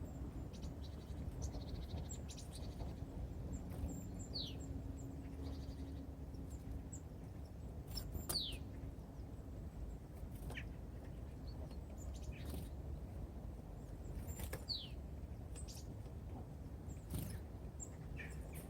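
Small songbirds at a feeder giving a few short, sharp calls that fall in pitch, spaced several seconds apart, among scattered brief clicks and taps, over a steady low outdoor rumble.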